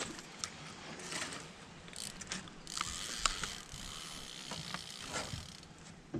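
Fishing reel being cranked, its gears and ratchet making a raspy whirring for a few seconds in the middle, with scattered sharp clicks from rod and reel handling.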